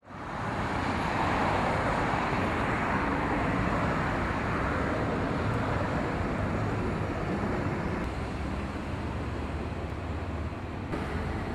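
Steady road traffic noise, cars passing on a city street, fading in at the start.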